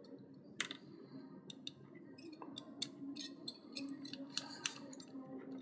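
Faint, irregular small clicks and scrapes of a wire and screwdriver being worked into a screw terminal on a plastic relay socket.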